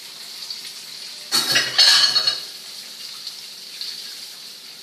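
Breaded chicken cutlets sizzling in olive oil in two frying pans, a steady high hiss. About a second in, the kitchen tap runs briefly in a loud rush of water lasting about a second.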